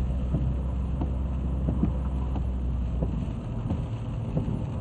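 Steady low rumble of a fast-flowing flooded river, its deepest part easing off about three seconds in.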